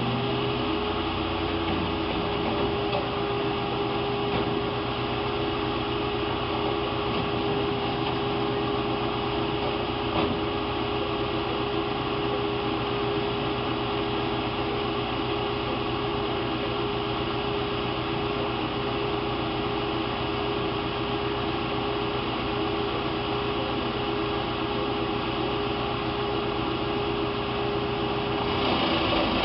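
Wood chipper's engine running steadily, a constant mechanical drone with a steady hum. Near the end the hum drops out and the sound gets louder.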